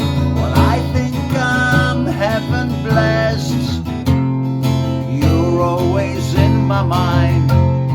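Music: a song with strummed acoustic guitar and a melody line over it.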